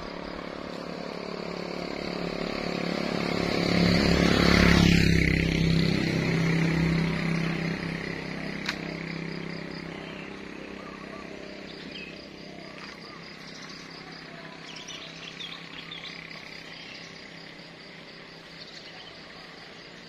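A motor vehicle passes by, its engine growing louder to a peak about five seconds in, dropping in pitch as it goes past and fading away over the next few seconds. Faint bird chirps follow near the end.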